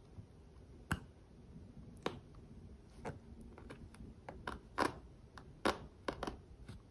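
Pocketknife blade cutting through a backpack's nylon fabric along a hand-sewn, reinforced seam: faint, sharp clicks and snaps at irregular intervals as the blade breaks through the fabric.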